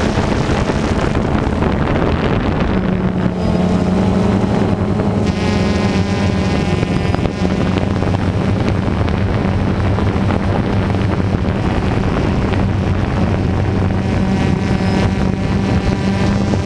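DJI Phantom II quadcopter's four motors and propellers running steadily in flight, a low hum with a higher whine over it, with wind rushing on the on-board camera microphone.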